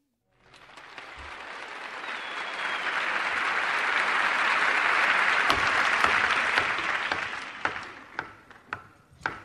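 Audience applause in a music recording. It swells up over a few seconds, then dies away into a few scattered single claps near the end.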